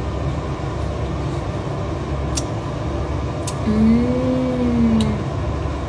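Steady low background hum with a few light spoon clicks. About two-thirds of the way in, a woman hums an appreciative "mmm" for over a second as she tastes food from a spoon, the pitch rising and then falling.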